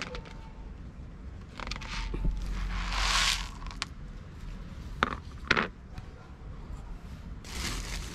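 A plastic feeding plate and dry cat food handled on concrete: rustling and scraping, then two sharp clicks about half a second apart.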